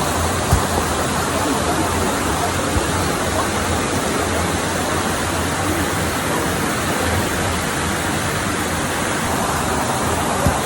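Waterfall: a steady, loud rush of falling water, with a brief thump about half a second in.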